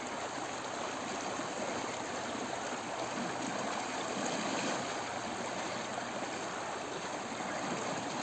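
Shallow stream flowing around people wading in it: a steady, even rush of water.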